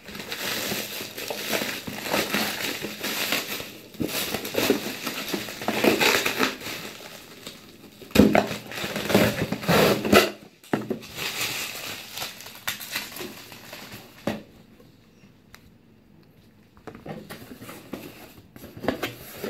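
Parcel being unpacked: black plastic packaging crinkling and being crushed, a craft knife cutting the tape on a cardboard box, and the cardboard flaps being opened near the end. The noisiest handling comes a little past the middle, with a quieter lull shortly before the flaps are opened.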